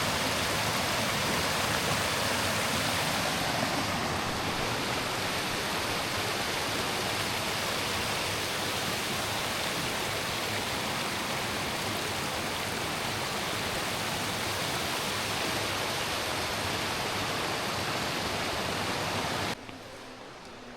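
Steady rush of flowing stream water that cuts off abruptly near the end.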